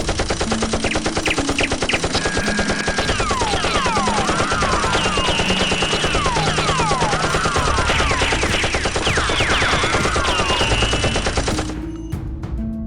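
Automatic-gunfire sound effect: a fast, unbroken rattle of shots with repeated falling whistles over it. It cuts off suddenly near the end.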